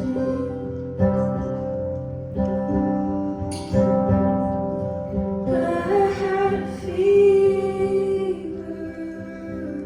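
Live acoustic music: an acoustic guitar strummed in chords, with a woman's voice singing a held, wavering line in the middle.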